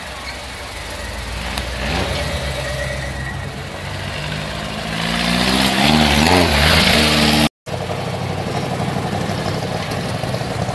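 Classic cars' engines running as the cars drive slowly past one after another. One engine revs up with a rising pitch and is loudest about five to seven seconds in, then the sound cuts out for a moment and another car's engine carries on steadily.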